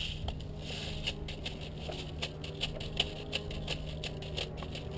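Scattered airsoft fire: an irregular run of sharp clicks and snaps, about three or four a second.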